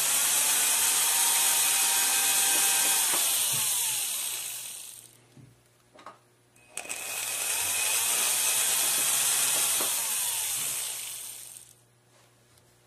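Jeweler's flex-shaft rotary handpiece with a small abrasive tip, run twice for about five seconds each, spinning up and then winding down, with a steady high hiss of abrasive on metal. It is smoothing file marks from the inside of a ring shank after sizing.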